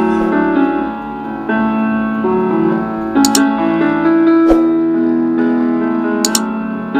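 Background piano music with sustained, overlapping notes, and two short clicks about three and six seconds in.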